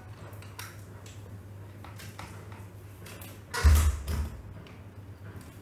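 A hand takes hold of a plastic remote-control toy excavator: a loud muffled knock of handling about three and a half seconds in, then a smaller one just after, over a steady low hum.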